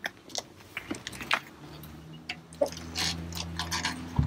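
Footsteps and scuffing as a person walks around a light aircraft and climbs up onto its wing, ending in a sharp knock against the airframe. A steady low hum comes in about halfway through.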